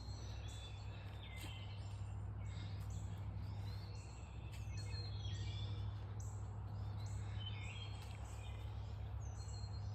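Several songbirds chirping and singing, many short overlapping calls, over a steady low hum.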